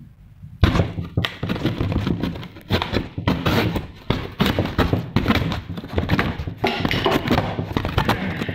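Cardboard being banged, scraped and torn at close range: a rapid, jumbled run of knocks and scraping that starts suddenly about half a second in.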